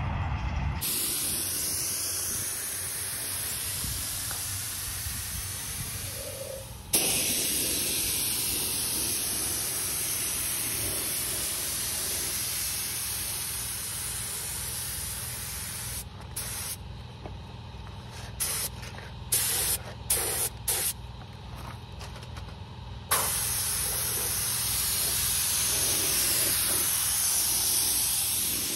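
Paint spray gun hissing as it sprays a truck frame rail: a long pass that stops and restarts about seven seconds in, then a run of short trigger pulls, then another long steady pass near the end.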